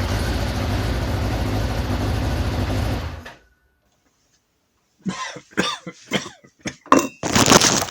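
Carburetted engine running steadily, then cut off abruptly about three seconds in. After about two seconds of silence come irregular coughs and pops as the engine is cranked and fires unevenly, the loudest near the end.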